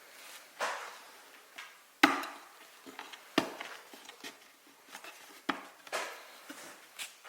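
Hand work on wood: three sharp wooden knocks, a second or so apart, among softer scraping and brushing sounds of a tool or piece moving against wood.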